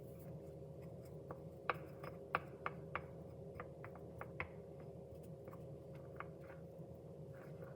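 Wooden popsicle stick clicking against a bowl while stirring flour-and-salt dough: a run of about ten sharp light taps in the first half, fainter ones later, over a faint steady hum.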